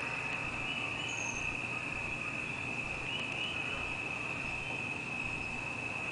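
Steady high trill of crickets or other insects, with faint chirps riding above it and a brief high whistle about a second in, over a low steady hum.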